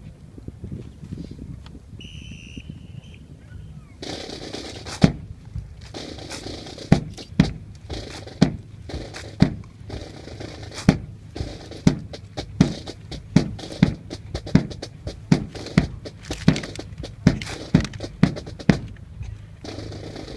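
Rifle drill display: a string of sharp slaps and knocks from rifles being struck and handled in drill, about one or two a second, starting about five seconds in.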